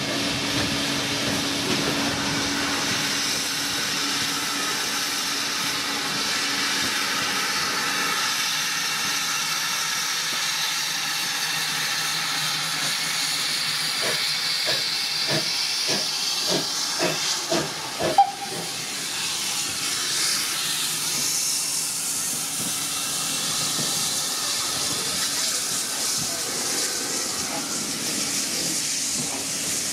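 Steam locomotive blowing off steam in a steady hiss. For a few seconds past the middle there is a run of regular knocks, about two a second, ending in one sharp, louder knock.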